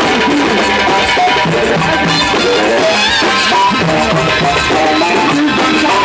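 Live Egyptian wedding band music: several large hand-held frame drums beat a steady rhythm together under a melody line.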